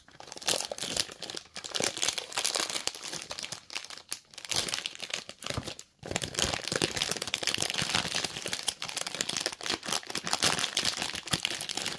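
Thin plastic packaging wrap crackling and crinkling as it is peeled and torn off a model car's box, in irregular handfuls with a couple of short pauses.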